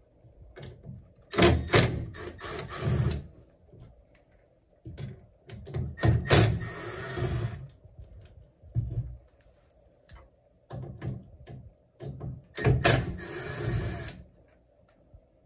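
Cordless drill-driver run in three short bursts of about a second and a half each, spinning screws on a tankless water heater's blower and venturi assembly, with small clicks and knocks of handling the parts between bursts.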